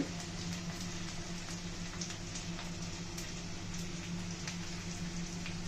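Green chillies, chopped garlic and ginger frying in hot vegetable oil in a steel kadhai: a steady sizzle with scattered small pops and crackles, over a steady low hum.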